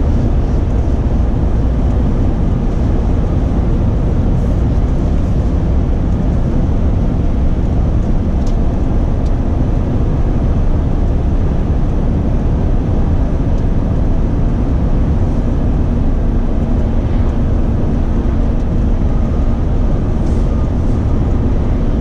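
Steady engine drone and road noise inside the cab of a Renault Trucks T-range truck cruising on an open road.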